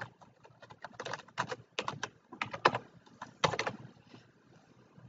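Computer keyboard typing in quick, irregular runs of keystrokes, stopping a little before four seconds in.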